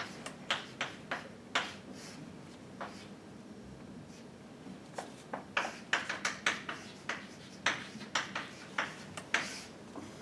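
Scattered light clicks and taps at an irregular pace, busiest in the second half, over a faint steady hum.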